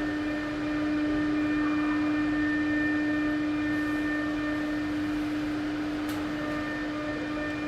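Steady machine hum: one constant low tone with fainter higher tones over a background hiss.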